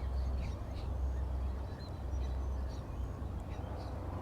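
Wild birds calling faintly, short chirps and whistles scattered through, over a steady low rumble.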